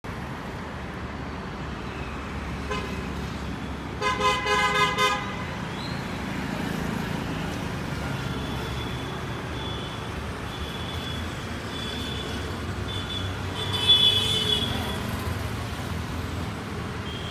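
Steady city traffic rumble with a car horn honking in a quick series of short toots about four seconds in, and another, louder horn blast near the end.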